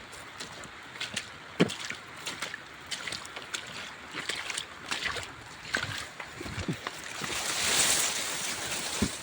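Rain falling: a steady hiss with many irregular taps of drops, and a swell of rushing noise near the end.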